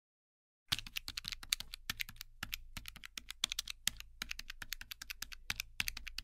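Rapid fingernail taps on a smartphone touchscreen, several a second, entering numbers into the calculator app. They start suddenly about a second in, after a moment of silence.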